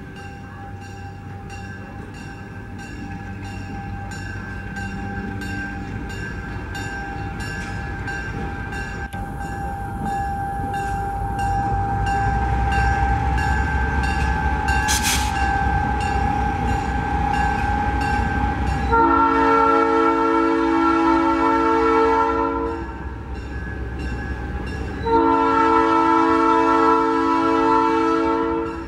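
Southern Pacific 3100, a GE U25B diesel locomotive, pulling a passenger train past, its engine rumble growing louder. It then sounds its multi-chime air horn in two long blasts of about three and a half seconds each, with a gap of about two seconds between them.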